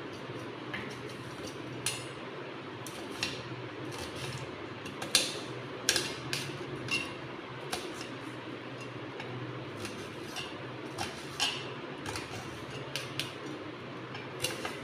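Small knife chopping an onion in a stainless steel plate: irregular taps and clinks of the blade against the steel, a few sharper ones around the middle.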